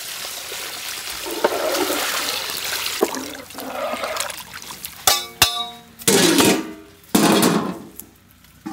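Water poured from a bucket into a large pot of curry, a steady rushing splash for about four seconds. Then a few metal clanks, one with a short ring, and scraping as a wide metal lid is set on the pot.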